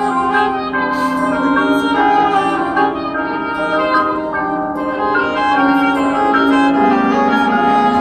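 Marching band playing live: the brass section holds full sustained chords that shift every second or so, with a couple of percussion crashes about a second in.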